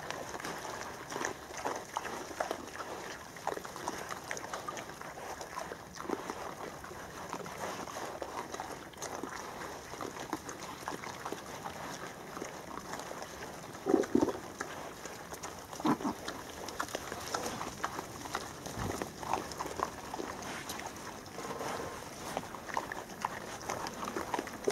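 Wild boar rooting and feeding in leaf litter, with continual rustling and small crunching clicks and scattered short grunts. The loudest grunt comes about fourteen seconds in, and another follows about two seconds later.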